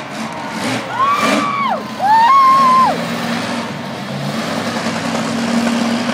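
Monster truck engines at an arena show. About a second in come two loud high tones, each rising, holding briefly and then dropping. After that a low steady engine drone carries on.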